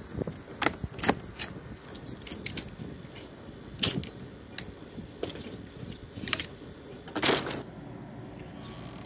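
Irregular sharp metallic clinks and knocks of hand tools working on a boat deck, pulling up teak and backing out old screws, with a longer scrape about seven seconds in.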